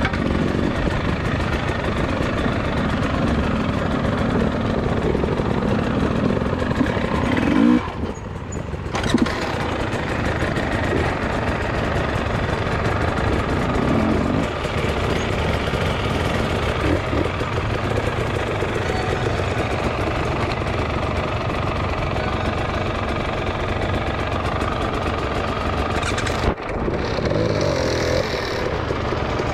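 Dirt bike engine running under varying throttle on an enduro trail ride. About eight seconds in, and again near the end, the sound briefly drops before picking up again.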